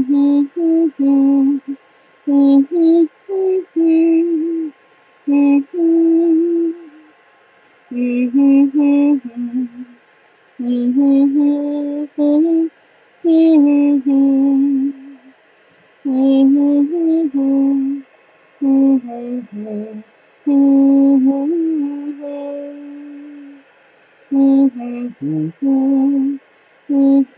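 A woman humming a slow tune in short phrases of held notes with pauses between them, over the steady whir of a heat embossing gun.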